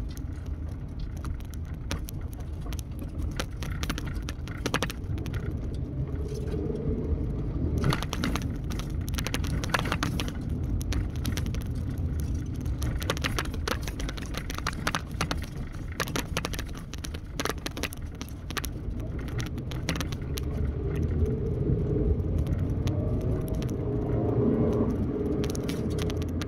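Road noise heard inside a moving car on a rough, potholed road: a steady low rumble with frequent clicks and rattles from the cabin.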